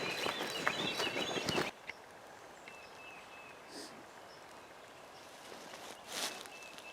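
Songbirds singing in a busy dawn chorus over footsteps. After about two seconds it drops suddenly to quiet woods with only a few faint, short bird chirps and one brief rustle near the end.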